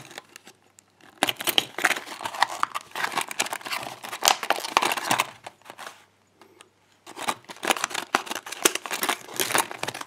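Clear plastic blister packaging crinkling and crackling as a padlock is worked out of it by hand, in two spells of irregular crackles with a short pause between them.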